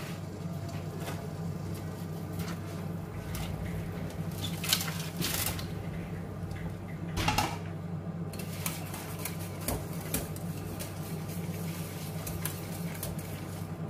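Stainless-steel pots and a bowl being handled on a stovetop: scattered clinks and knocks, with louder clatters about five and seven seconds in, over a steady low hum.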